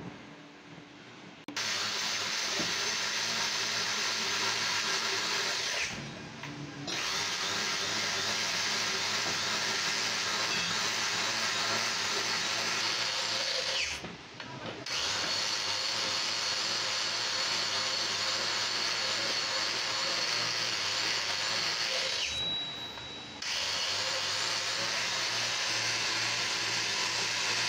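Angle grinder running under load, spinning a valve-seat cutter in the valve seat of a motorcycle cylinder head: a steady motor whine with a grinding hiss. It starts about a second and a half in and runs in four long stretches with brief pauses between them.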